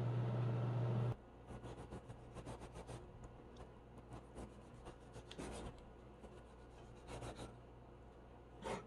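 For about the first second, an oven runs with a steady low hum. Then a chef's knife slices through grapefruit on a wooden cutting board: a run of short, irregular scraping cuts and light taps of the blade on the board.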